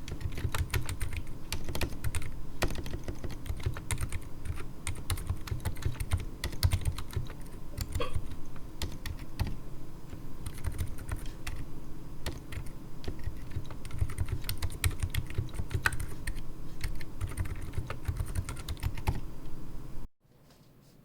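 Fast, continuous typing on a 60% keyboard with stock, unlubed Durock Daybreak silent linear switches (67g) and XDA-profile PBT keycaps, in a resin case set straight on an oak desk. It gives a dense run of muted, low-pitched keystrokes. The typing stops abruptly about a second before the end.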